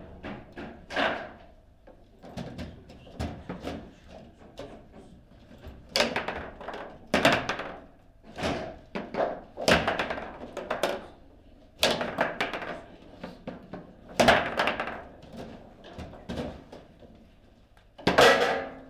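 Table football in play: an irregular string of hard knocks and thunks as the ball is struck by the plastic men and hits the table walls, with rods knocking in their bumpers. A louder burst of knocks comes near the end.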